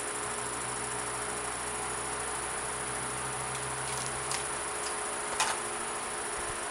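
Wood lathe running with a steady motor hum made of several even tones, a lower rumble under it fading out about four seconds in. A couple of light clicks about four and five and a half seconds in.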